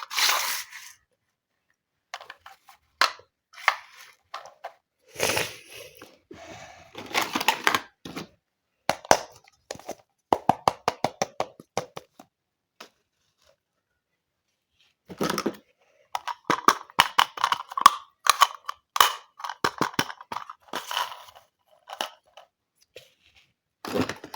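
Small plastic toy pieces and packaging being handled: scattered clicks, taps and short rustles. About ten seconds in there is a quick run of ticks, and a few seconds of quiet follow in the middle.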